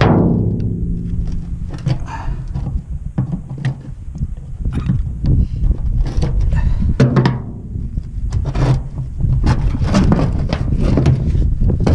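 Metal knocking and clanking from work on a manure spreader's floor-conveyor chain, with a hard ringing strike right at the start and another about seven seconds in, and lighter knocks between.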